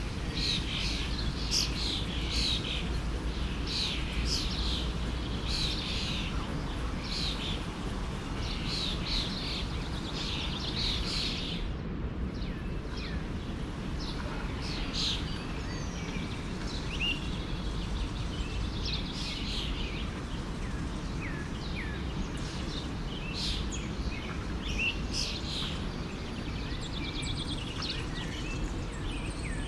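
Forest stream running steadily, with small birds chirping and calling over it; the calls are thickest in the first twelve seconds or so, then come more sparsely.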